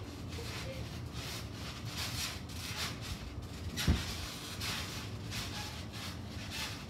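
Trampoline being bounced on: soft repeated swishes and creaks from the mat and springs, with one sharp thump about four seconds in as a body lands on the mat.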